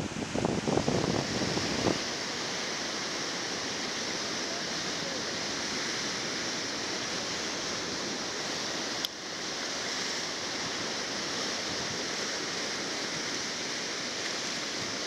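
Sea surf breaking on a beach, an even steady wash of noise. Wind buffets the microphone with low gusty rumbles for about the first two seconds, and a single sharp click about nine seconds in marks a cut in the sound.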